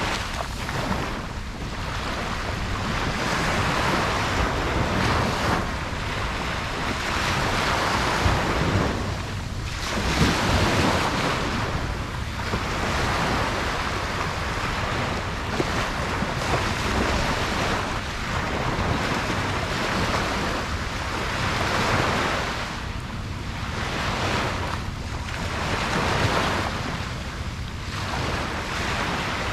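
Ocean waves breaking and washing up a beach, the surf swelling and ebbing every few seconds, with wind buffeting the microphone.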